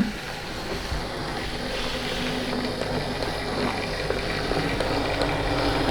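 Model train running along the track, a Bachmann GWR 64xx pannier tank locomotive pushing an autocoach: a steady whir of the motor and rumble of the wheels on the rails.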